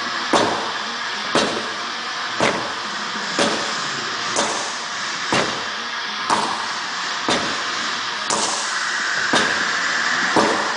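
Sledgehammer strikes landing in a steady rhythm, about one blow a second, each a sharp thud, over a constant background hiss.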